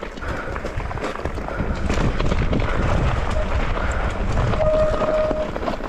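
Mountain bike rolling over a rough trail: continuous tyre noise and rattling of the bike, with a short steady squeal near the end.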